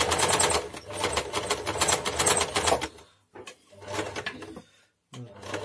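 Janome household sewing machine, stripped of its covers, running at speed with a fast, even clatter of its mechanism for about three seconds. It stops, then runs in two short bursts while its hook area is being oiled.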